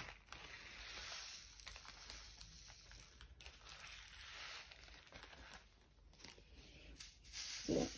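Faint rustle of a small plastic zip bag as black round resin diamond-painting drills are tipped out and spread in a plastic sorting tray, with a short low bump near the end.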